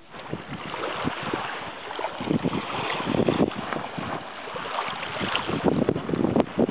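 Wind buffeting the microphone in uneven gusts, over the wash of small sea waves in the shallows.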